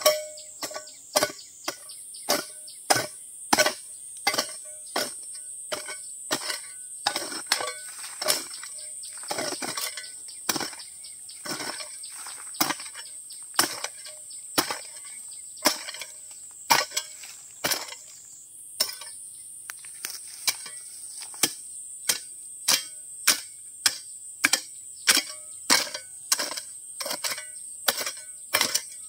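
Steady chopping, about two sharp strikes a second, over a steady high insect drone.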